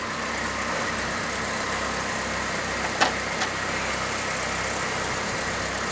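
A vehicle engine idling steadily, with two short clicks about three seconds in.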